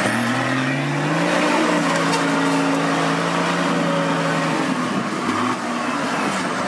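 Off-road 4x4's engine revving up over about the first second, held at a steady high pitch for about three seconds, then falling away.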